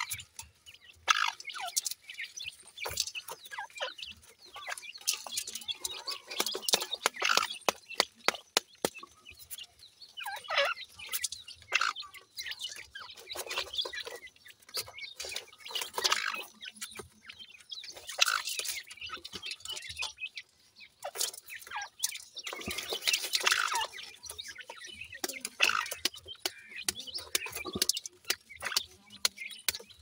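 Francolin (teetar) chicks clucking and chirping softly, amid many sharp clicks and rustles as bark, dry leaves and gravel are shifted about in a metal basin.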